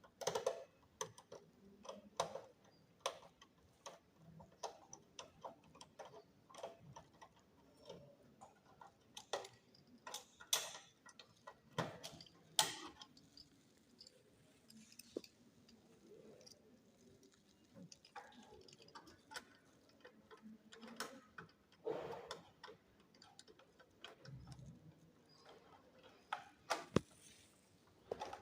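Irregular clicks and taps of a screwdriver driving the mounting screws of a computer power supply into its metal case.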